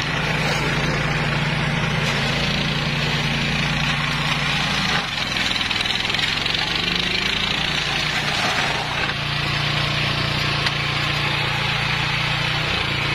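Small petrol engine of a walk-behind flail mower running steadily while its chopping rotor cuts through tall dry grass. The engine note drops about five seconds in and picks back up around nine seconds.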